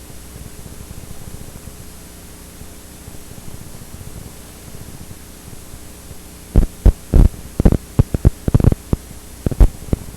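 VHS tape playback audio: a steady low mains-type hum under tape hiss. About two-thirds of the way through comes a run of a dozen or so loud, irregular pops and crackles.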